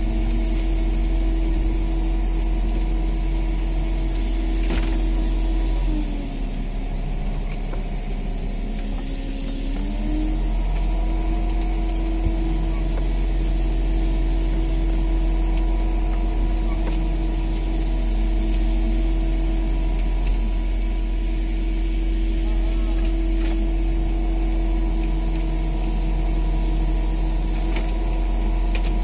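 Fishing boat's engine running steadily with a deep hum. About six seconds in its pitch drops and it slows, then it picks back up around ten seconds and runs on evenly.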